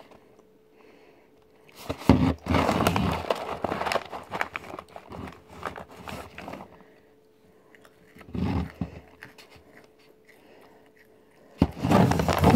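Crinkling of a plastic stand-up snack pouch as it is handled and turned over in the hands. It comes in irregular rustling bouts, the longest starting sharply about two seconds in.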